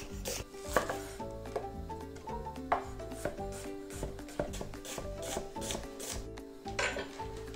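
Chef's knife slicing an onion on a wooden cutting board: a run of irregular crisp cuts, each stroke ending in a knock of the blade on the board, over background music.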